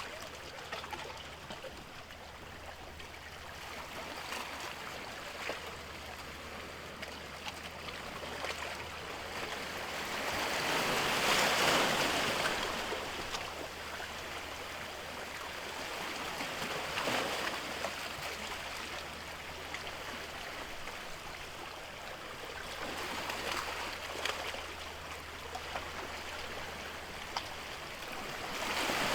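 Sea waves washing in, each swell of rushing water rising and falling away about every six seconds, the biggest about a third of the way through, over a steady low hum.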